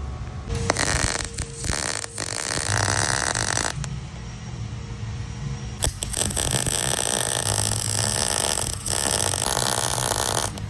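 Arc welding: a crackling, sputtering arc struck in two runs, the first with a few brief breaks and stopping a little before 4 s, the second starting about 6 s in and running for several seconds.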